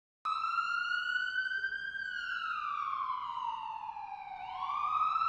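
Siren-like wailing tone laid in as an edited sound effect. It rises slightly, sinks slowly for about two and a half seconds, then climbs again near the end.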